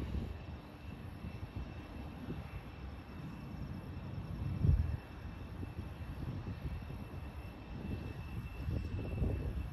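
Distant light general-aviation aircraft engine droning as the plane takes off, with wind gusting on the microphone; it grows louder near the end.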